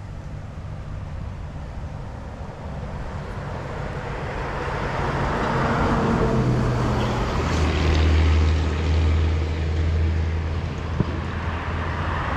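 A passing engine's low, steady drone that grows louder to a peak about eight seconds in and then eases off. A single sharp click comes near the end.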